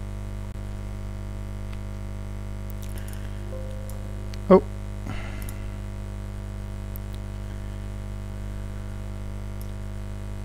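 Steady electrical mains hum: a constant low buzz with a stack of evenly spaced tones above it, unchanging throughout, with a brief spoken 'Oh' about halfway.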